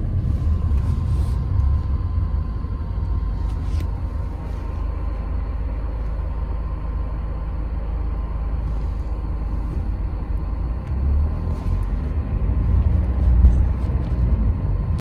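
Steady low road rumble of a moving car heard inside the cabin, swelling a little near the end.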